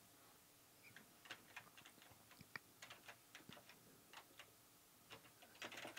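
Faint typing on a computer keyboard: irregular key clicks, starting about a second in, with a quick run of keystrokes near the end.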